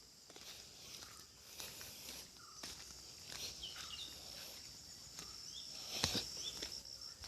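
Footsteps along a village path, with short chirping bird calls repeating every second or so and a steady high-pitched whine underneath. One step or knock about six seconds in is louder than the rest.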